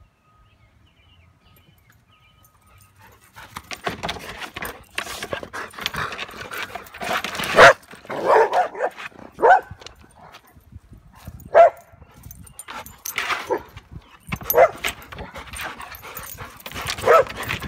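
Dog barking and whimpering up close, in about eight short, loud calls, with rustling between them. The calls start about three and a half seconds in.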